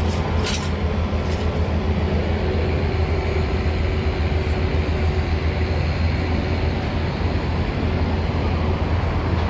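Steady low mechanical drone, like an engine or machinery running without let-up, with a faint steady hum above it and a couple of brief clicks about half a second in.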